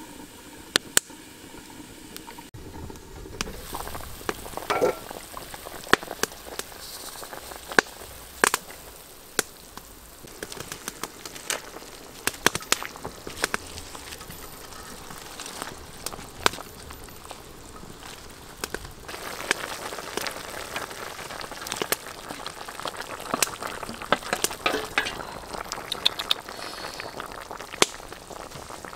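Wood fire crackling and popping with sharp, irregular snaps under a wok of broth simmering with steady bubbling.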